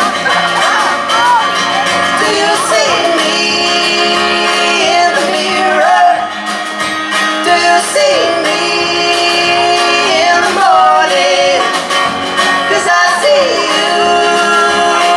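Live band music: a woman singing the lead melody over strummed acoustic guitar and a band accompaniment.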